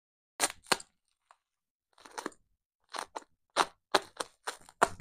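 Packing paper being unwrapped from a rifle bolt: short, sharp crinkling crackles that come in irregular bursts with brief pauses between them.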